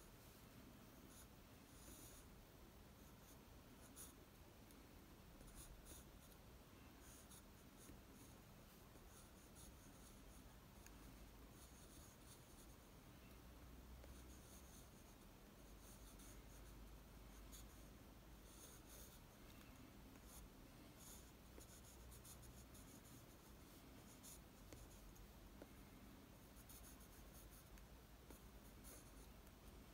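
Faint scratching of a graphite pencil on drawing paper, in clusters of short quick strokes with brief pauses between.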